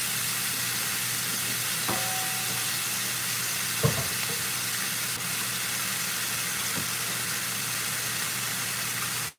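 Thin-cut steak sizzling steadily in a screaming-hot cast-iron skillet of coconut oil, with a single knock about four seconds in.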